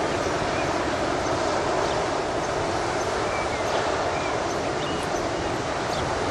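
Blustery wind rushing steadily and buffeting the microphone, with a few faint high bird chirps.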